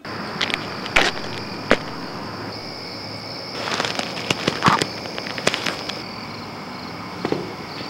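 Night insects chirring in a steady high drone that turns into short pulses near the end, with scattered sharp clicks and snaps, the loudest of them about a second in and in a crackly cluster around four to five seconds.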